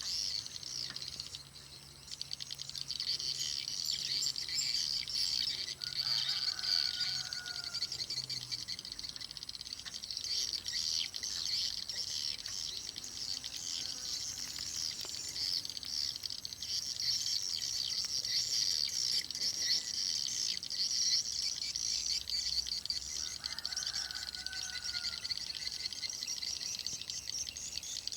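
Swiftlets twittering continuously in a dense, high chorus of rapid chirps, typical of a swiftlet house, with two short lower calls about six seconds in and again near the end. A low hum runs underneath for the first eight seconds or so, then stops.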